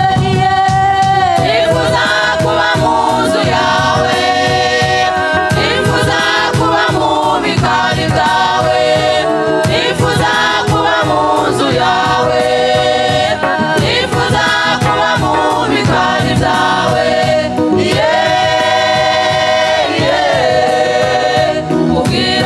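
A choir singing a gospel song in harmony over instrumental backing with a steady beat.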